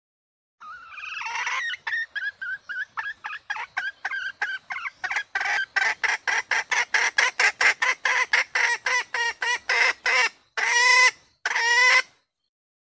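Female red junglefowl hen calling, the hen's call that draws cock birds in. A long opening note leads into a fast run of short clucks, about three or four a second, that grow louder and end in two longer drawn-out notes.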